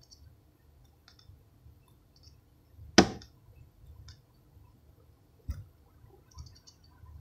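Plastic three-arm fidget spinner spinning in the fingers, with faint light clicking. One sharp click about three seconds in and a softer knock about two and a half seconds later.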